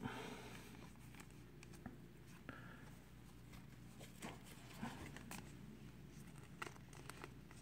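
Faint rustling and a few soft clicks of trading cards being handled and slid into plastic card sleeves.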